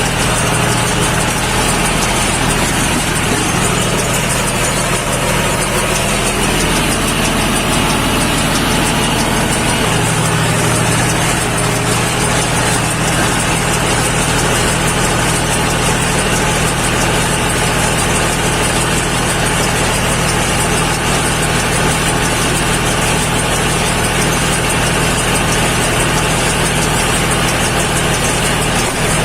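Tractor engine running steadily under load as it drives a round straw baler, with the baler's mechanical rattle mixed in.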